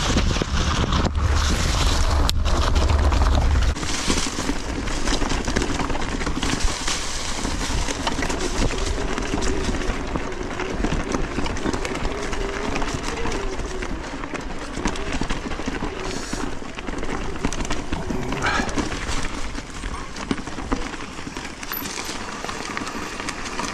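Mountain bike riding over a dirt trail: steady tyre noise and rattling of the bike over bumps, with wind buffeting the microphone for the first few seconds.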